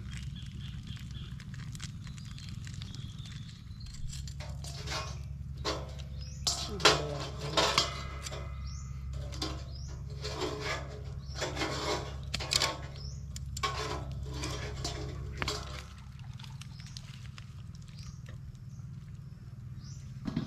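Knocks, scrapes and clatter of a steel bowl and cooking utensils being handled over a husk fire, in a run of short, sharp strikes in the middle, a few of them briefly ringing like metal. A steady low rumble lies underneath.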